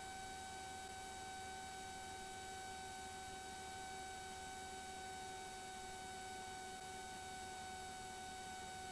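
Faint steady electrical hum of several fixed tones over an even hiss, with no change throughout.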